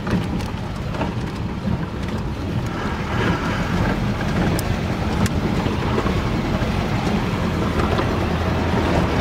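A vehicle's engine drones steadily while the vehicle rolls over a rough dirt mountain road, with low rumbling road noise heard from inside the cabin.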